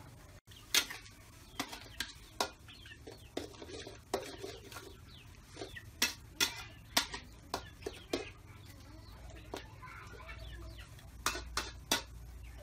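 A metal spatula clinking and scraping against a steel wok during stir-frying, in irregular sharp strikes, with a chicken clucking now and then.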